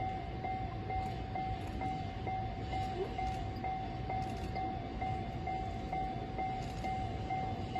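Japanese railway level-crossing alarm ringing, a repeating electronic ding about twice a second, over a low steady rumble.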